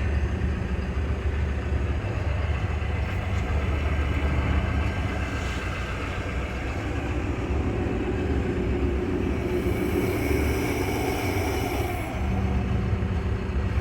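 John Deere backhoe's diesel engine running steadily under way, a low even hum. A higher whine and hiss join for a couple of seconds about two-thirds of the way through.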